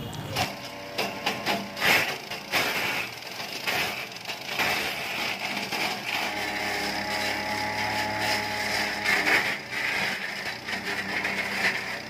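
Small engine-driven wood chipper running and chipping branches: repeated sharp cracks and crunches of wood being cut over the steady drone of its engine.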